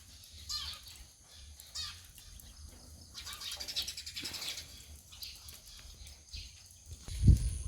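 Birds calling: short high chirps twice early on, then a rapid rattling trill lasting about a second. A loud low rumble starts near the end.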